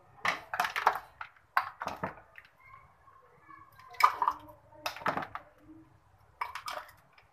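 Plum sharbat poured from a ladle into a drinking glass, splashing and gurgling in about six short bursts, with the ladle knocking against the bowl and glass.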